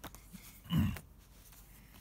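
Glossy paper leaflets being handled and turned over, with faint paper clicks. A short breathy vocal sound comes under a second in.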